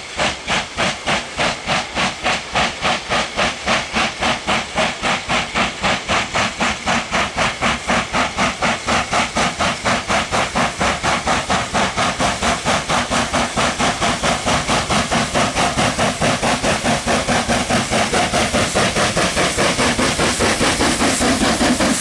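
Southern Railway S15 class No. 847, a two-cylinder 4-6-0 steam locomotive, chuffing at speed: a fast, even beat of exhaust blasts that grows steadily louder as it approaches. Near the end the rumble of wheels on the rails builds as it draws level.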